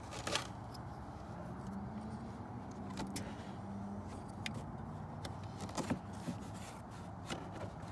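A few sharp clicks and taps as a hand handles a pleated air filter in its opened plastic intake housing, over a low steady hum.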